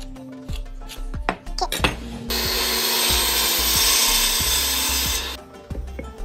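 Electric mitre saw blade cutting through a wooden plank. The loud cutting noise starts suddenly about two seconds in, runs for about three seconds, then cuts off.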